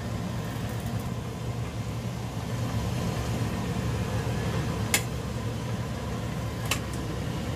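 Induction cooktop humming steadily under a pot of chicken cooking in soy sauce. A plastic ladle gives two light clicks against the pot, about five seconds in and again near the end.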